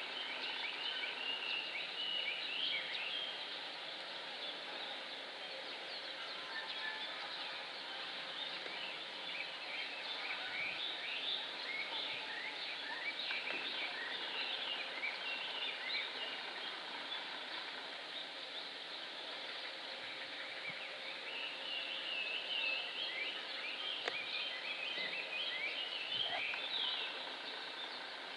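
Small birds chirping and twittering, many short rapid calls coming and going, over a steady outdoor background hum.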